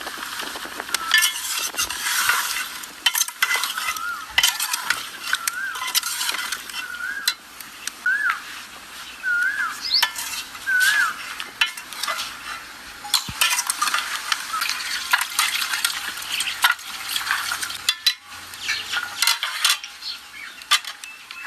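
Food sizzling in a pan as it is stirred, with a utensil scraping and clicking against the pan over and over.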